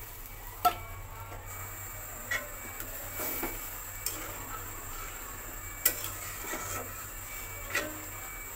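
Long metal spatula stirring thin, freshly watered-down masala gravy in a metal kadai, knocking sharply against the pan about five times, roughly every two seconds, over a faint steady hiss.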